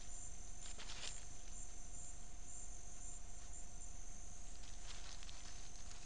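Rainforest insects calling: a steady high buzz with pulsing high notes over a constant faint hum, broken by a few soft ticks or rustles about a second in and near the end.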